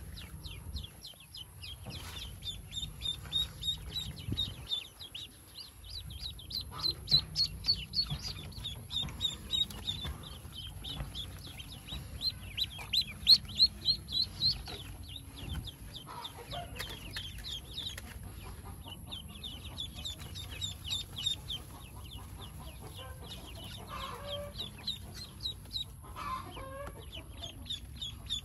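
Newly hatched Pekin ducklings peeping: quick runs of short, high-pitched peeps, several a second, loudest about halfway through.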